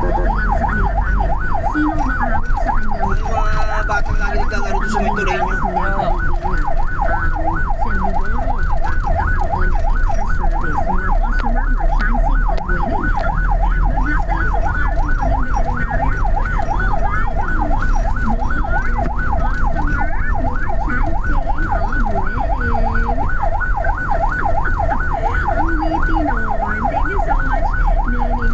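Ambulance siren in fast yelp mode, its tone sweeping rapidly up and down about three to four times a second without a break, heard from inside the ambulance over a low engine and road rumble while it runs to an emergency call.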